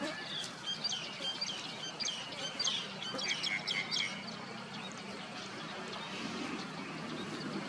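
A bird chirping a quick run of short, high notes that fall in pitch, in the first half. After that only steady background noise remains.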